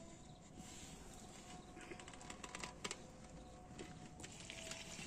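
Faint scattered clicks and light knocks of a cooking pot and utensils being handled, over a quiet background with a faint steady tone.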